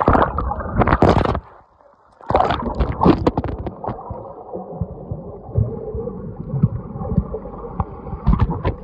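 Pool water splashing and sloshing right against the microphone: loud splashes in the first second and a half, a short lull, then more splashing that settles into a muffled gurgling.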